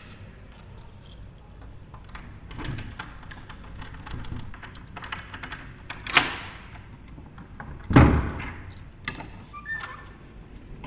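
Keys rattling and clicking in the lock of a wooden door, a sharp clack about six seconds in, then a loud thud about eight seconds in as the door is opened, followed by a few more clicks of the handle.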